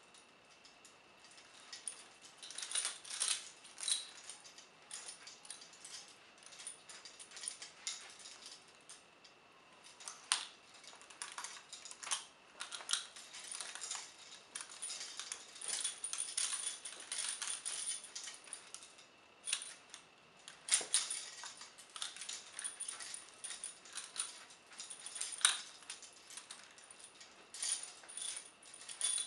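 Steel handcuffs and the long connecting chain of a set of vintage heavy prisoner shackles clinking and jangling as the cuffed hands shift and twist behind the back. The clinks come irregularly, in clusters, with a few sharper clacks.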